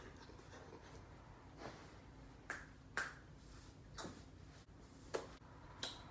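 About five sharp finger snaps at uneven intervals over quiet room noise.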